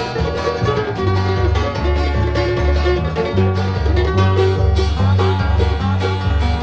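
Bluegrass band instrumental at a fast tempo: a five-string banjo picks rapid rolls over strummed acoustic guitar, with a bass walking back and forth between low notes on the beat.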